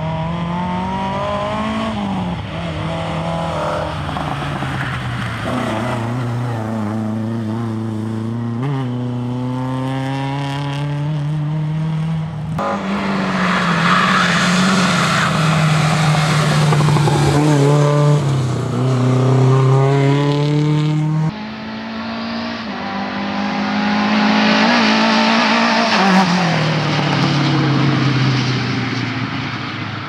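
Lada 2107 rally car's four-cylinder engine revving hard, its pitch climbing through each gear and dropping on every shift and lift, over several passes joined by sudden cuts.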